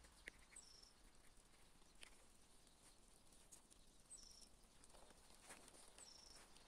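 Near silence, with a small bird calling faintly three times, each call a short high note dropping to a slightly longer lower one. A few faint clicks.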